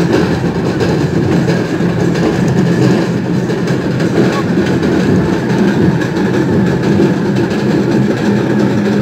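Loud, steady roar of a packed festival crowd, many voices blending into one dense rumble.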